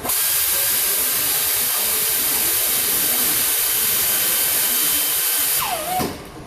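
Compressed-air blow gun hissing in one steady loud blast, which cuts off about five and a half seconds in with a short falling whistle.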